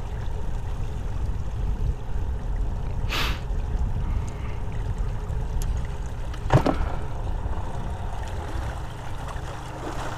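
Steady low rumble of water and air around a small fishing boat on a lake, with a short hiss about three seconds in and a sharp knock on the boat about six and a half seconds in.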